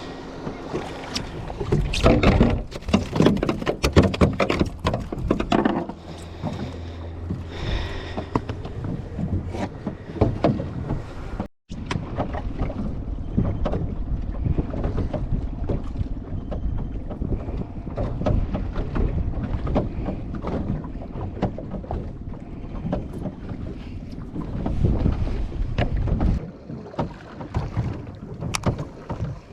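A fishing boat at sea: wind buffeting the microphone over water and hull noise, with many small knocks and crackles. The sound cuts out for an instant about 11 seconds in.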